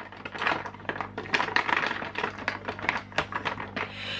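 Rapid, irregular clicks and rustles of a makeup product and its packaging being handled.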